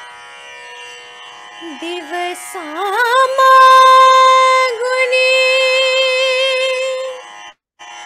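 Tanpura drone, over which a young woman begins singing a Marathi song: from about two seconds in, her voice slides up through wavering ornamented notes and settles on one long held note, breaking off briefly near the end.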